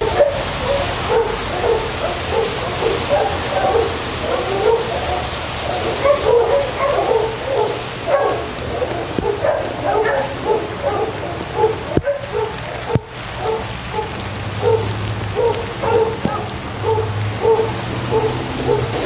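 A dog barking repeatedly, about two barks a second, over the steady hiss of falling rain.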